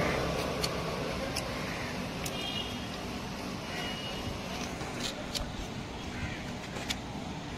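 Steady street traffic rumble with a few sharp clicks scattered through it, from a knife cutting guava into chunks that drop into a steel bowl.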